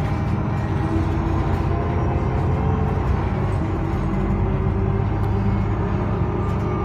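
Iveco Urbanway 12 city bus under way, heard from inside the passenger cabin: a steady engine drone over road rumble.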